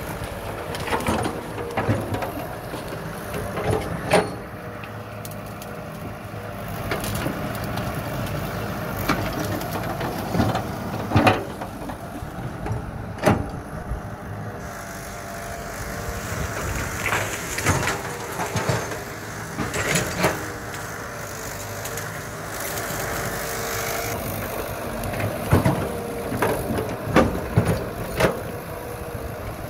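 Caterpillar E120B hydraulic excavator's diesel engine running steadily under load, with sharp cracks and knocks every few seconds as its bucket pushes through and breaks brush and small trees.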